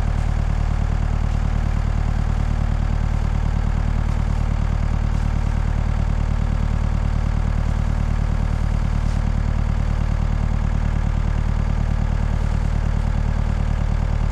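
Rayco RG50 stump grinder's engine running steadily at an even speed, with no change in load.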